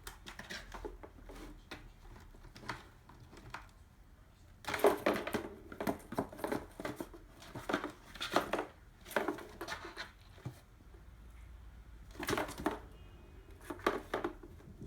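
Ping-pong balls knocking and rolling inside a cardboard box, with scuffs against the cardboard, in irregular bursts that grow busier about a third of the way in.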